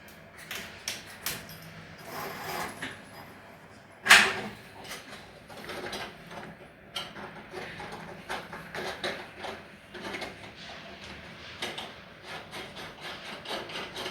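Hand work on plumbing fittings: irregular clicks, knocks and scraping as parts and tools are handled, with one sharp, loud knock about four seconds in.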